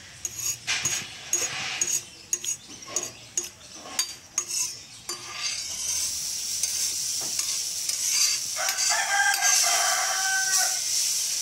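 Utensil clinking against a vessel for the first five seconds or so. Then dosa batter poured onto a hot iron tawa sizzles, and the sizzle grows louder. A long pitched call sounds in the background about nine seconds in.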